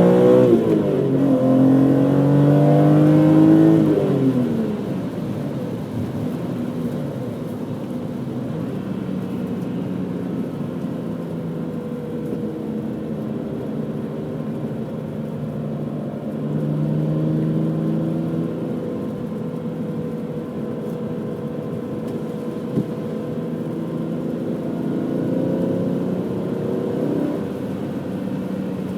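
Stock BMW M3 engine under hard acceleration: the pitch drops at a gear change and then climbs again for a few seconds. After that the engine eases off to a steady cruise, with a couple of milder pulls later on.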